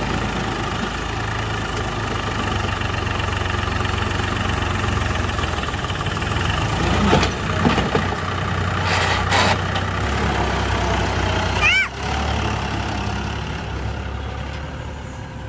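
Heavy diesel engine of earth-moving machinery running steadily at low revs, with a few knocks about halfway through and short rising squeaks near the end.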